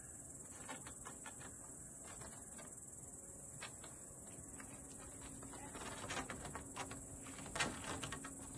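Faint, steady high-pitched chirring of crickets or other insects. Near the end come a few light scratches and knocks as a cat's claws grip and shift on a wooden plank.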